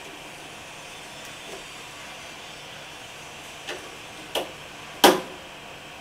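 Three sharp clicks or knocks of hard parts being handled, about 0.7 s apart and each louder than the last, the third loud, over a faint steady hiss.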